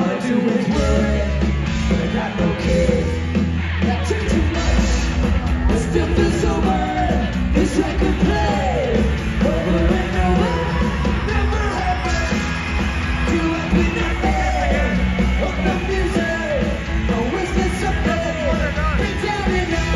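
Live ska-punk band playing: a woman singing lead over electric guitars, bass guitar and drums.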